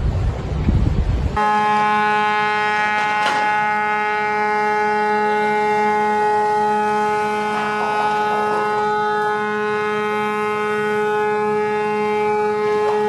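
Gusty wind on the microphone, cut off about a second in by a ship's horn sounding one long, steady blast at a single pitch that holds to the end.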